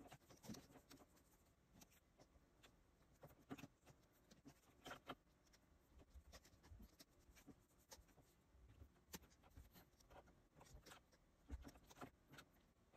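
Faint, irregular clicks of keyboard keys pressed as drawing shortcuts with the left hand, mixed with a stylus tapping and stroking on the screen of a Cintiq pen display.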